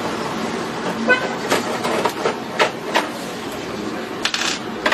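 Tower fan heater's fan running with a steady rush of air while the heater gives no heat, with scattered clicks and knocks of handling on its plastic casing and a short tone about a second in.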